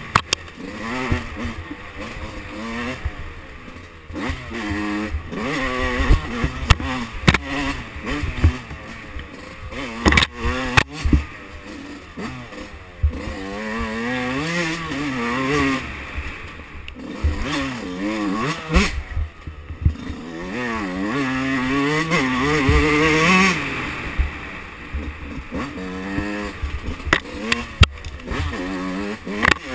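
A 2005 Yamaha YZ125's single-cylinder two-stroke engine revving up and down again and again under riding load, its pitch rising and falling as the throttle is worked on a twisty trail. Scattered sharp knocks and clicks run through it.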